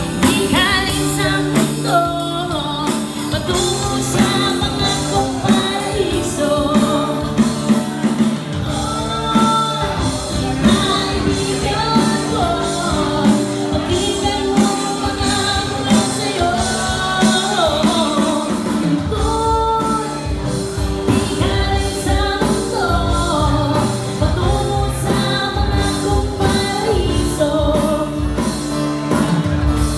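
Live acoustic band: a woman singing into a microphone through a PA, backed by strummed acoustic guitar and a steady percussion beat.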